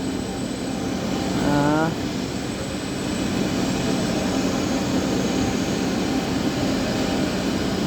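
Woodworking CNC router running with a steady mechanical drone.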